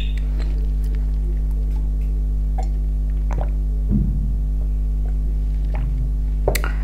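Steady low hum with a few faint mouth clicks from eating, and swallowing sounds about four seconds in as a drink is gulped from a glass.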